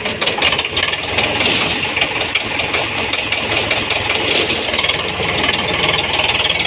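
Diesel tractor engines running steadily under load as one tractor tows another free by a rope, with an even rhythmic pulse.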